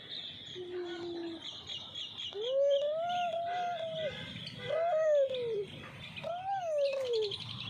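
Many small birds chirping at once in a dense high twitter, joined by three longer rising-and-falling calls in the second half.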